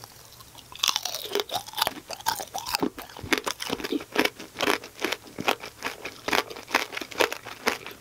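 Tanghulu being bitten and chewed: the hard glassy sugar coating on skewered fruit cracks between the teeth in many sharp, crisp crunches, close to the microphone.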